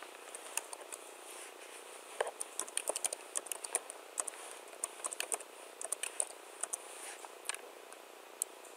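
Typing on a computer keyboard: irregular runs of sharp keystroke clicks with short pauses between them.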